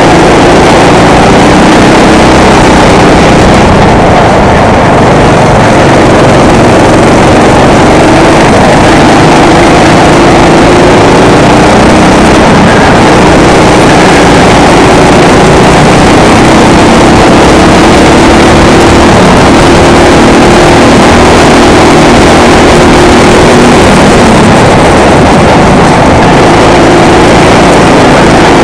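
Racing kart engine running hard at race speed, its pitch slowly rising and falling with the throttle through the corners. It is heard from a helmet-mounted camera, loud throughout, with wind rushing over the microphone.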